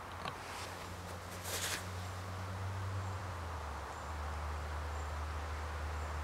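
Woodland ambience with a steady low hum that steps down in pitch twice, and a brief rustle about one and a half seconds in.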